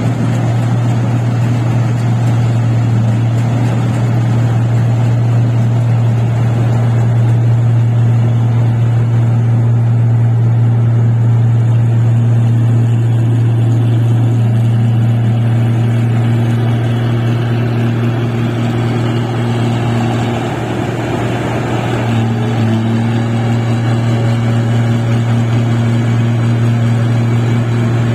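Engine of a paddy machine running steadily at a constant speed, a loud low drone with a fainter higher hum that fades in and out, dipping briefly about twenty seconds in.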